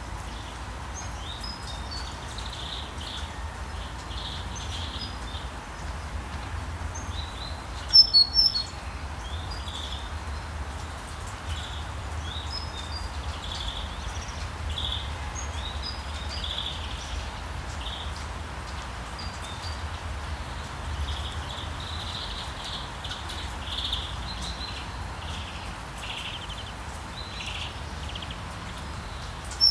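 Small birds chirping and calling over a steady hiss of rain, with a low rumble beneath. About eight seconds in, and again at the very end, comes a louder quick run of sharp chirps.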